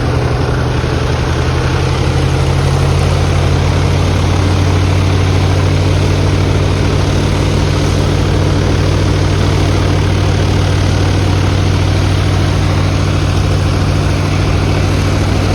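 An engine idling steadily and loudly at close range, a low even hum with no revving.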